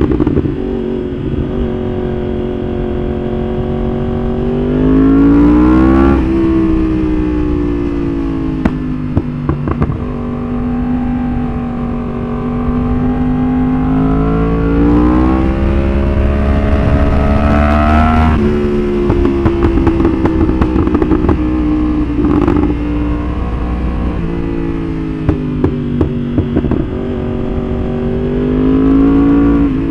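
Yamaha R1's inline-four engine revving up and falling back several times, with sharp pops and crackles as the revs drop, from its pop-and-bang exhaust tune.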